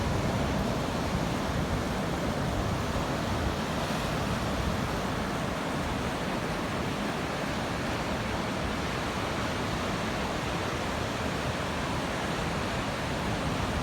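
Steady roar of heavy ocean surf from big waves breaking, an even rushing noise with no distinct crashes.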